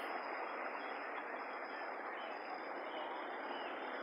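Steady rush of a fast-flowing river running high over rocks and shallows, with a faint steady high tone above it.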